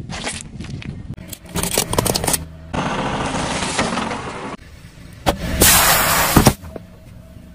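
A car tyre rolling over and crushing things on asphalt. A plastic jelly cup cracks and pops, a candy-coated ice cream cone crunches and crackles as it breaks apart, and about six seconds in an aluminium drink can bursts with a loud hiss of spraying foam. A low rumble of the car runs underneath.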